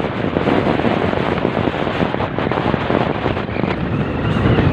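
Wind buffeting the phone's microphone while riding in the open back of a moving vehicle, over the steady noise of the vehicle and its tyres on the road.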